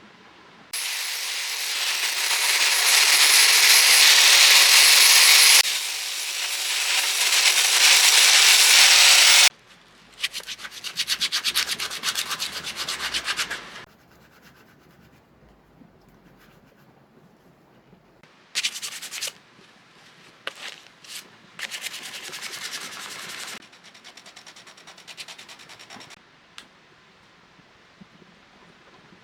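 A steel dagger blade made from spring steel being sanded with an abrasive, typical of cleaning up the blade after heat treatment. There is a long, loud stretch of sanding that stops about nine and a half seconds in, then a few seconds of quick scrubbing strokes, then shorter bursts of sanding with pauses between them.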